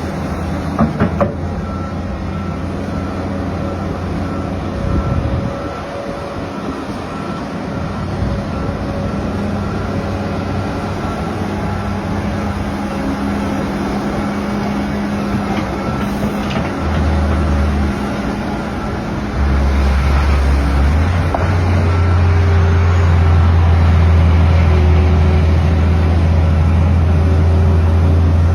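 Heavy diesel excavator engine running and working, its low drone growing louder and heavier in the second half as it works under load. A backup alarm beeps repeatedly throughout.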